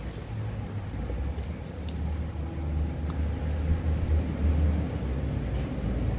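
A low rumble that builds toward the end, with a few faint crunches from a puppy gnawing a raw chicken carcass.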